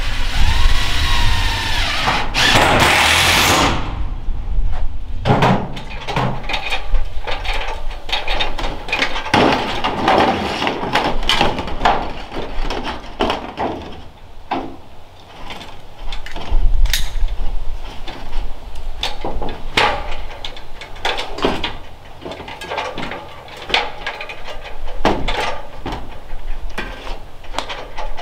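A handheld power tool whines as it cuts into the corrugated sheet-metal wall, its pitch dipping under load, and it stops about four seconds in. After that come scattered knocks and clanks of metal parts being handled and fitted.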